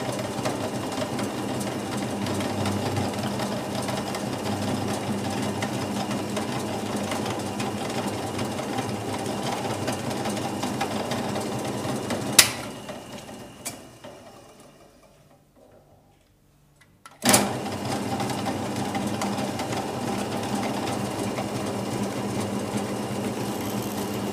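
Drill press motor running with a steady hum. About 12 seconds in it is switched off with a sharp click and spins down to near silence. About 17 seconds in it is switched on again with another click and runs steadily.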